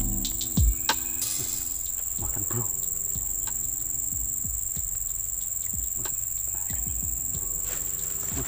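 Steady high-pitched insect chirring from the swampy grass, with faint scattered clicks and rustles.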